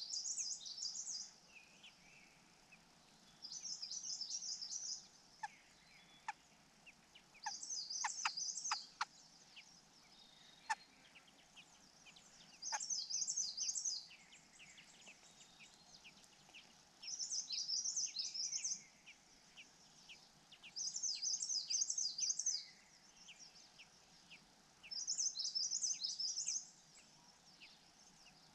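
A bird calling in high, chattering phrases about a second and a half long, repeated regularly every few seconds, with faint clicks in between.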